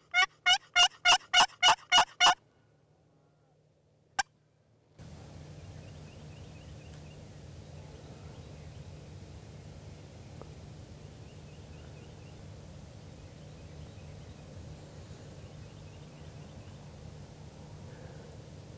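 Wild turkey calling: a quick series of about nine evenly spaced loud notes lasting just over two seconds. Then a brief hush with one short sharp note, and steady outdoor ambience with faint bird chirps for the rest.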